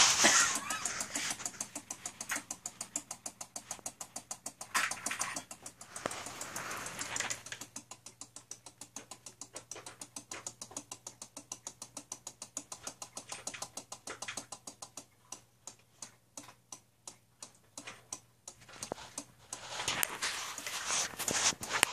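Relays in a homemade 16-channel Christmas-light controller clicking rapidly and evenly, several clicks a second, as they switch the light strings on and off. A rustling hiss lies over the clicks for the first several seconds and again near the end.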